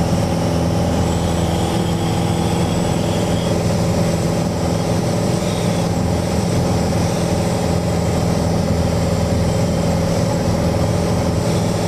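Steady drone of a Mooney single-engine light aircraft's piston engine and propeller, heard from inside the cabin in level flight, with an even pitch throughout.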